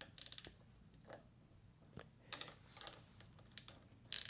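Small metal hand tools clicking and clinking in light, scattered taps: a quick run of clicks at the start and a louder clatter near the end, as an 8 mm tool is sought for a nut.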